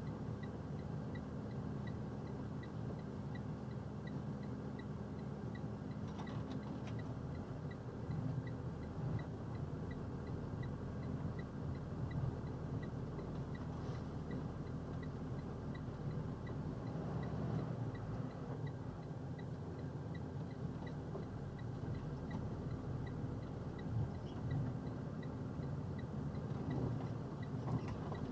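Box truck's diesel engine running at low speed, heard as a steady low rumble inside the cab. A small high tick repeats evenly about twice a second throughout.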